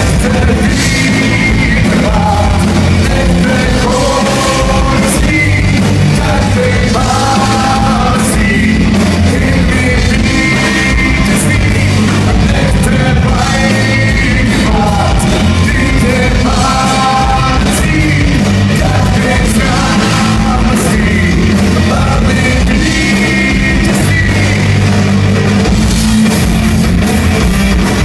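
Live rock band playing loud: a singer's vocal phrases over electric guitar and drums.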